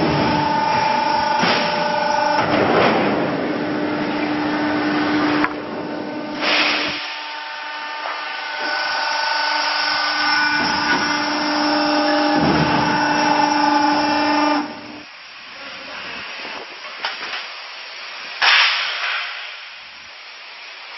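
A garage door panel roll forming machine running, a steady machine hum with several held tones, broken by a few short louder noisy surges. The hum drops away about three-quarters of the way through, leaving quieter machinery noise.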